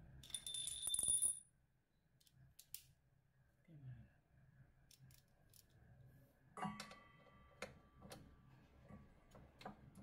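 Clinks, rattles and clicks of a metal ratchet wrench and 13 mm socket being handled and fitted onto a bolt of a washing machine's motor and belt assembly. A loud rattle comes in the first second and a half, a ringing metal clink at about two-thirds of the way through, and scattered light ticks near the end.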